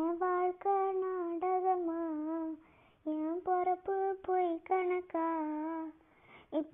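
A high-pitched voice singing a slow tune in two phrases, with a short pause between them.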